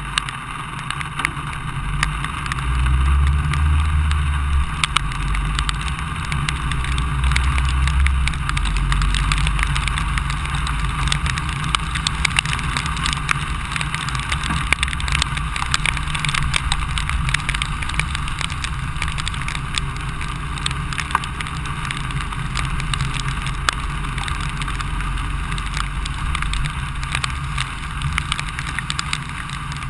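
Rain and road noise picked up by a rain-spattered camera moving along a wet street: a steady rushing, with many small ticks of raindrops striking the camera and a low rumble that grows louder a few seconds in.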